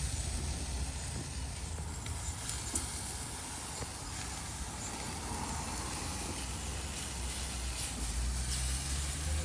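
Barbecue grill fire burning with a steady hiss, over a constant low rumble.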